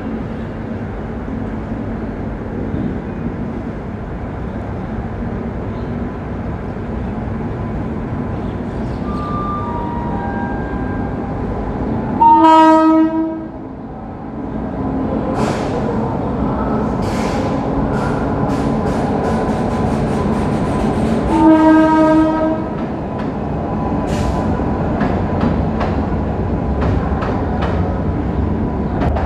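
Indian Railways diesel locomotive hauling a goods train through the station. It sounds two horn blasts about nine seconds apart, each about a second long. Its engine rumble grows louder as it comes near, and from about halfway on the wagon wheels click steadily over the rail joints.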